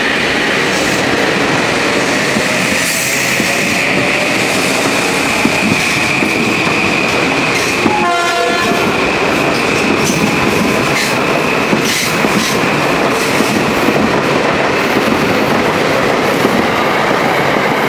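Metro-North electric multiple-unit commuter train passing close at speed: a loud, steady rush of wheels on rail with a high whine, with sharp clicks as the wheels cross rail joints.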